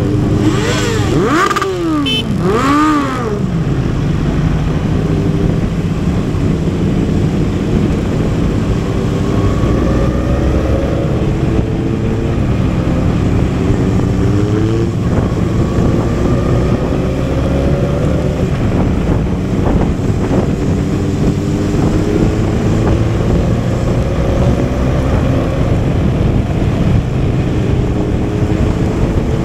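Motorcycle engine heard from the rider's own bike while riding. About a second in come several quick throttle blips, the pitch jumping up and dropping; after that it runs steadily, now and then rising slowly in pitch as the bike speeds up.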